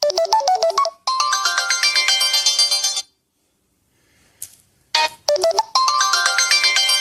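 Samsung Galaxy S25 Ultra ringtone playing: a quick run of bright notes, then a shimmering cluster of chime tones that cuts off about three seconds in. After a short pause, a ringtone starts again with a similar run of notes and chimes.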